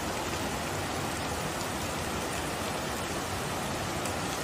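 Muddy floodwater rushing down a street between houses, a steady rush of water mixed with falling rain.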